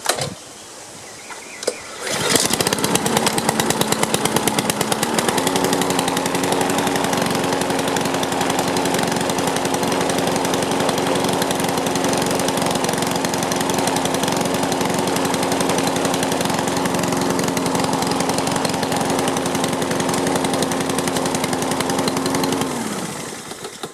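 Honda GCV160 single-cylinder engine on a Craftsman self-propelled lawn mower pull-started on choke, catching about two seconds in. It runs steadily, picking up speed a little a few seconds after starting, then is shut off and winds down to a stop near the end.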